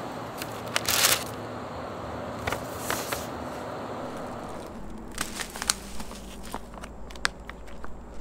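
Thin plastic carrier bag and paper being handled while a delivery kit is unpacked: short, irregular crinkling and crackling, with one louder rustle about a second in and a run of small crackles in the second half.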